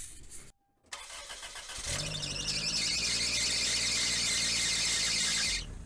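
Toyota Corolla engine running with a loud, high-pitched noise from its failing power steering pump, starting about two seconds in and cutting off near the end. The pump is noisy when the engine is cold and goes quiet once it warms up.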